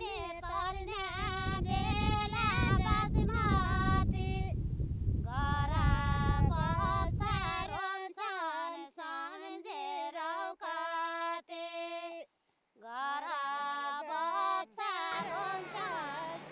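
A female voice singing a slow Jumli folk melody in long held notes, with short breaks between phrases. A low rumbling noise lies under the first half and stops suddenly about eight seconds in.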